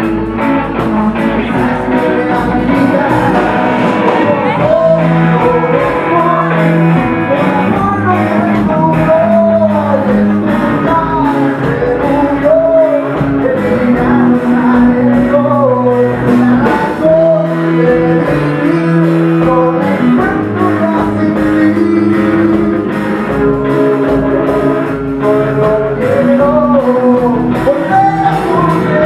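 Rock band playing live: a male singer sings over electric guitars and drums.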